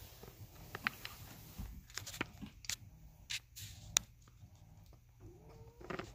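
Siamese kittens playing on a rug: scattered light taps, scuffs and clicks of paws, claws and toys, with one sharp click about four seconds in and a brief rising squeak near the end.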